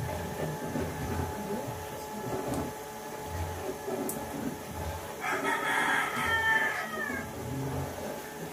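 A rooster crowing once, about two seconds long, starting about five seconds in.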